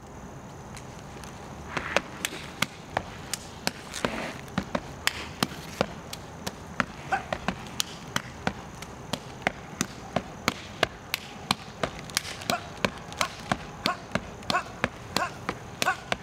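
Gumboot dance: a solo dancer's rubber gumboots are slapped by hand and stamped on stone paving. The result is a fast rhythm of sharp slaps and stamps, about three a second, starting about two seconds in.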